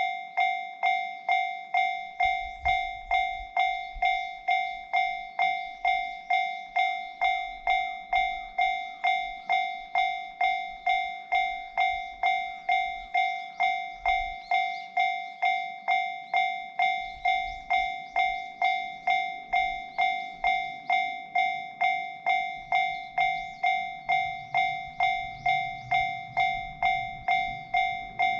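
Japanese level-crossing alarm bell ringing steadily, about two strikes a second, each dying away. Under it a low, uneven rumble from about two seconds in: the two-car 115 series electric train running over the crossing.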